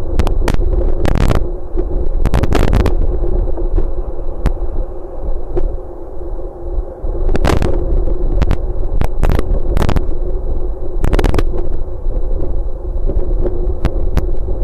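Wind buffeting a webcam microphone: a heavy low rumble broken by loud crackling pops in clusters, over a steady low hum.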